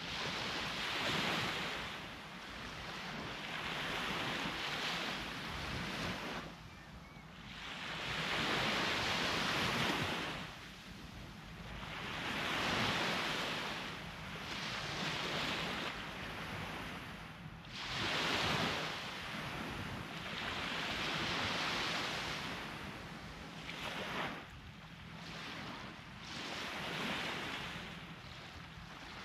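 Sea waves breaking and washing up a beach, a swelling rush that builds and falls away every three to four seconds.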